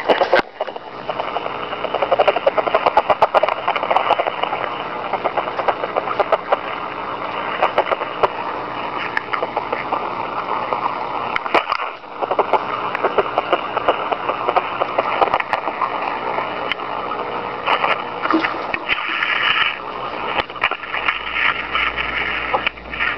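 Ferret dooking recorded on a digital voice recorder and played back through its small speaker: a fast run of clucking that goes on almost without a break, with a short dropout about twelve seconds in.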